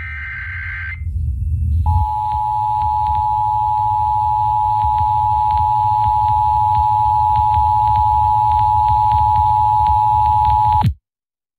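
Emergency Alert System broadcast over the radio. It opens with the last of the SAME header data bursts, about a second of harsh digital screech. After a short gap comes the two-tone EAS attention signal (853 and 960 Hz), held steady for about nine seconds, then it cuts off abruptly. Under it run a low hum and faint crackle.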